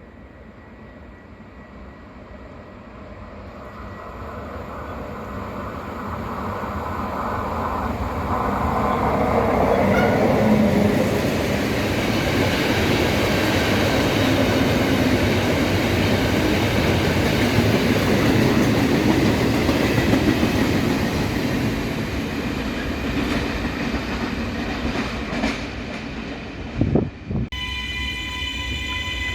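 A train passing through the station: the rumble and wheel clatter build over several seconds, stay loud for about ten seconds, then ease off. Near the end the rumble breaks off suddenly and a steady pitched tone takes over.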